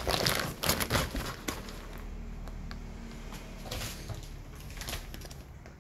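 Plastic bags of loose tea crinkling and rustling as they are pressed down into a cardboard carton, densest in the first second and a half, then quieter scattered rustles and light knocks over a faint low hum.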